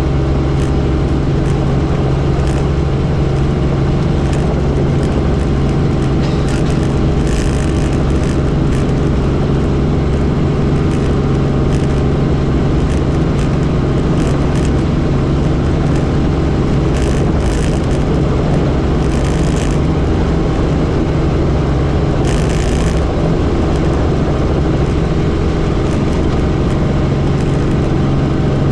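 Helicopter engine and rotor noise, steady and loud, with a strong constant low hum and a few brief hissing flurries.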